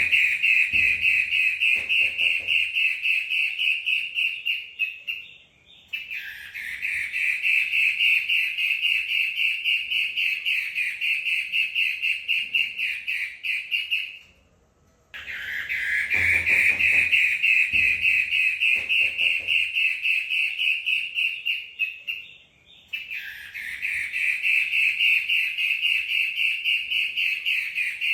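Female centet matahari, a shrike, singing in long, rapid chattering trills, each running about five to eight seconds, with brief pauses between them.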